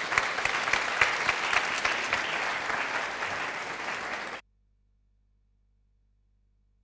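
Audience applauding at the close of a talk: many hands clapping together, which stops abruptly about four seconds in.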